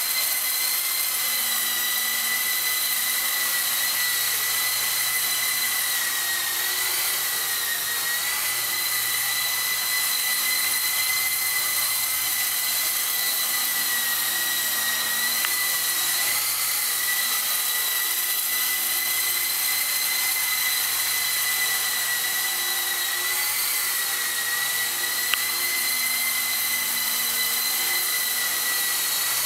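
E-flite Blade CX3 Huey, a small electric coaxial RC helicopter, in flight: its motors and rotors give a steady high-pitched whine that wavers slightly in pitch as it manoeuvres.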